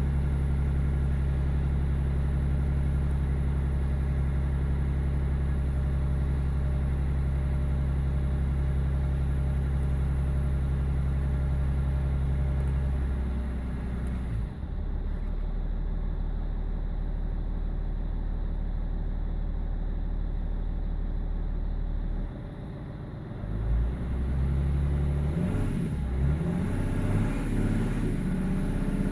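BMW E46 330d's M57 straight-six diesel engine idling with a lumpy, uneven idle, which the owner puts down to a failing injector, number 6. About halfway through the sound changes, and near the end it briefly drops in level before picking up again.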